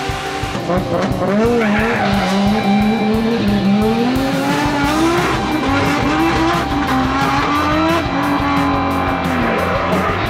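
Drift car's Nissan VR38 V6 engine, taken from an R35 GT-R and enlarged to 4.3 litres, revving up and falling back several times as the car slides, with tyre squeal. Background music with a steady beat plays underneath.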